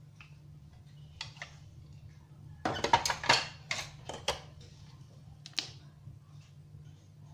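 Kitchen handling noises: scattered sharp clicks and clatter of containers and small utensils being picked up and set down. The louder, busier clatter comes in the middle, over a steady low hum.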